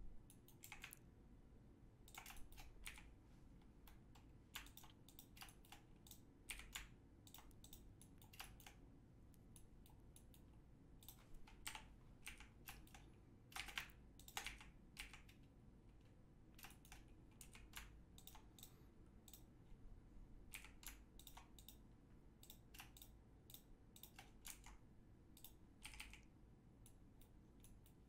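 Faint computer keyboard keys and mouse buttons clicking irregularly as shortcuts are pressed, over a low room hum.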